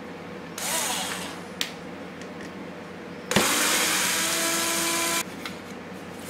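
Small cordless electric screwdriver driving screws into a mini quadcopter frame, in two runs: a short one about half a second in, its pitch rising and falling, then a louder, steady run of about two seconds.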